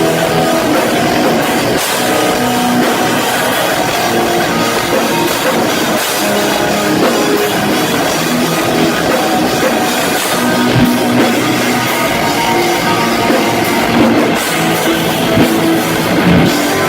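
Rock band playing loudly at a sound check, with a drum kit and guitar.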